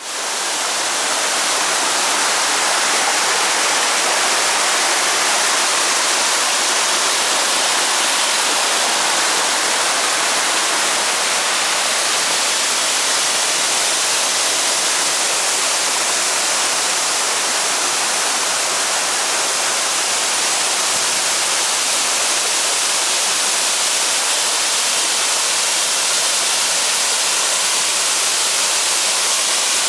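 Waterfall pouring: a steady, loud rush of falling water. It fades in over the first second.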